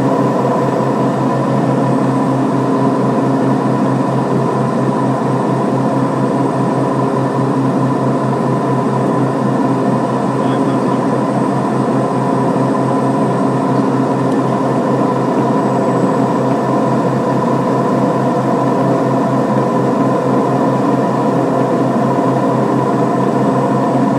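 Steady cockpit drone of a Beechcraft King Air B200's twin Pratt & Whitney PT6A turboprop engines and propellers on final approach: an even hum over a low, fast-pulsing propeller beat.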